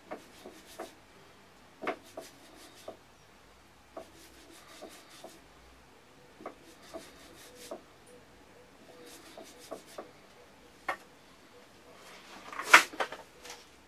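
Whetstone and its wooden holder being handled: scattered light knocks and clicks of stone and wood being moved and set down, with a louder scrape about a second before the end.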